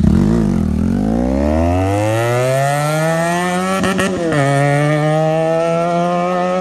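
Sport motorcycle accelerating hard away, its engine note rising steadily for about four seconds, then a burst of crackles and a drop in pitch as it shifts up, before climbing again more slowly.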